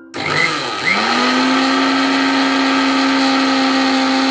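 Electric mixer grinder (mixie) with a steel jar dry-grinding roasted rice and horse gram with salt and asafoetida into a powder. The motor starts, dips and spins up again within the first second, then runs at a steady high speed.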